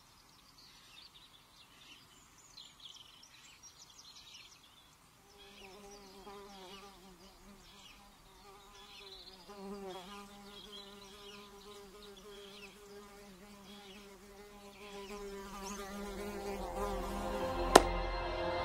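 A fly buzzing, its drone wavering slightly in pitch as it moves about, starting about five seconds in after faint high chirps. Near the end a low rumble swells and there is one sharp click.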